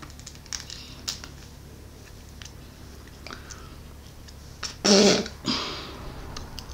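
Quiet clicks of a small cosmetics package being handled and bitten at. About five seconds in comes a brief wordless vocal sound with a breath after it.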